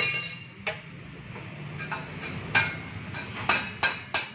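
Sharp metal knocks and taps on a car's exhaust pipe being fitted, about eight strikes, some ringing briefly, spaced irregularly and coming faster near the end.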